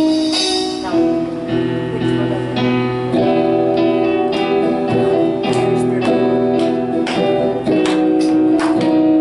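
Acoustic guitar strumming chords for a worship song, sustained notes ringing between the strums.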